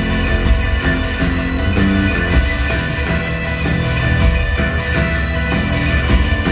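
A post-punk band playing live: electric guitar, bass guitar, synthesizer and drum kit over a steady beat, recorded from within the audience.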